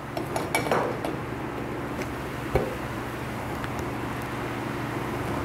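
Light metallic clicks and taps as screws and small parts are fitted back into an industrial sewing machine's needle plate area, with one sharp click about two and a half seconds in, over a steady low hum.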